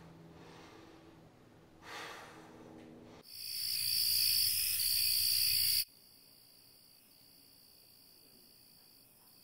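Chorus of night crickets, loud and high-pitched, coming in about three seconds in after quiet room tone. It cuts off sharply a little past the middle, leaving a fainter, steady cricket chirring that carries on.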